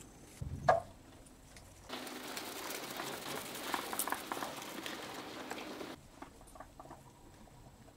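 Mouse moving through dry straw and paper bedding, a dense crackling rustle that starts and stops abruptly, preceded by one brief sharp sound about a second in.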